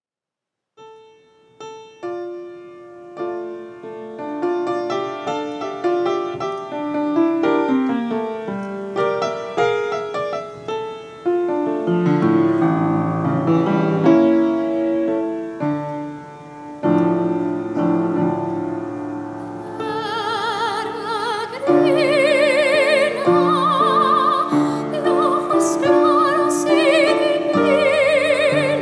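Solo piano introduction played live, note by note. About twenty seconds in, a classical soprano enters with wide vibrato, singing over the piano accompaniment.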